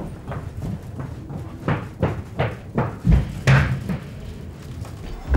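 Hurried footsteps running along a corridor: irregular thuds, a few each second.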